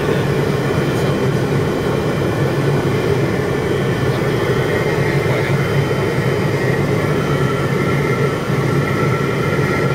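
Steady cabin drone of a Piper JetProp's turboprop engine and propeller in cruise flight, with airflow noise. It is an even, constant hum with a few steady whining tones above it.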